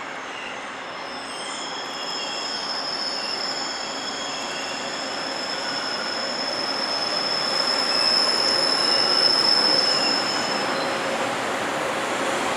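Freight train hauled by a JR Freight EF210 electric locomotive rolling past, its wheels giving a long, steady, high-pitched squeal over the rumble. The noise grows louder about two thirds of the way through.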